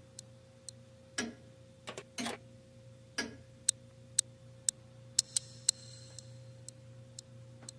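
Clock ticking about twice a second, slightly uneven, over a faint steady hum, with a few softer knocks in the first half.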